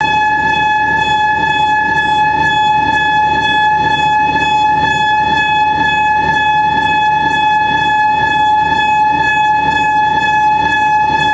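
Blasting warning horn holding one steady, unbroken note over a low engine rumble, signalling that a rock blast is about to go off.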